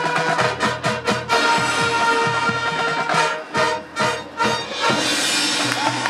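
Marching band playing, brass and drums together, with a string of sharp accented ensemble hits about a second in and again between three and four and a half seconds, short gaps between them.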